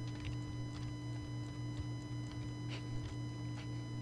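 Irregular light clicks of a computer keyboard and mouse, several a second, over a steady electrical hum with a faint high whine.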